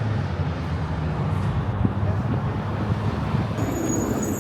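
Steady road and engine noise inside a moving car's cabin: a low rumble under a constant hiss of tyres and wind.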